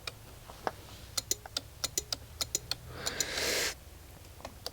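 Rapid, fairly regular clicking at about four or five clicks a second from the starting system of a 2021 Honda Forza 125 as it is asked to crank and does not turn over. This is the no-crank fault's clicking from near the battery. A short hiss comes in about three seconds in.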